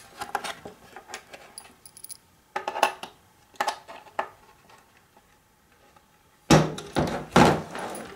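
Metal screwdriver tip clicking and scraping against the hard plastic case of a 1978 Speak & Spell as its snap tabs are pushed in, with a quiet pause, then a few louder knocks near the end as the case is handled against the table.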